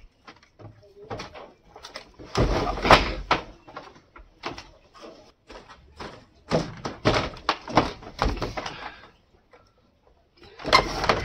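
Thuds and knocks of a heavy, stiff slab of dried, smoke-cured pork being set down and handled on a bamboo-slat floor, the slats clattering. The loudest knocks come about two and a half seconds in, and more come a few seconds later and again near the end.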